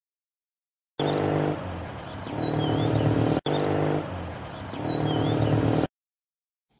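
Zundapp boxer-twin motorcycle engine running on the road, the revs dropping away for a smooth, quiet gear change with no crunch and then picking up again: how a gear change sounds with the clutch separating properly. The same short recording plays twice, with a few bird chirps.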